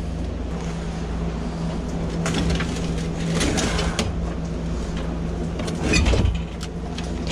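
Handling noise from a vending machine's refrigeration unit being worked loose: scattered metal clicks, clunks and rattles, the loudest clunk about six seconds in, over a steady low hum.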